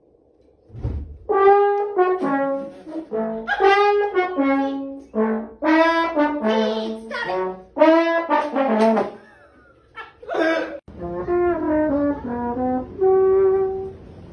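A brass melody of short held notes stepping up and down in pitch. It pauses briefly about ten seconds in, then plays a few more notes and ends on a longer held note.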